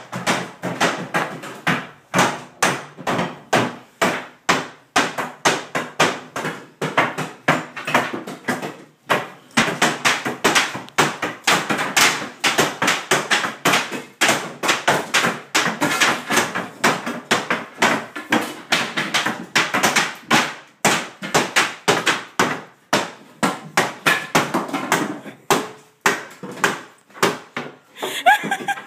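A fast, uneven run of sharp knocks or slaps, about three a second, with short breaks twice.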